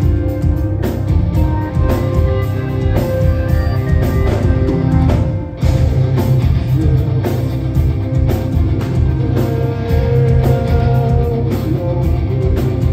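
Live rock band playing loudly through a club PA, with electric guitars, bass and drums, heard from within the crowd. The music breaks off briefly about halfway through, then comes straight back in.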